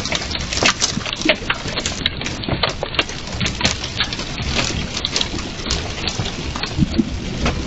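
Quarter-size hailstones and rain coming down hard: a steady hiss of rain under many irregular sharp clicks and knocks as stones strike hard surfaces, several a second.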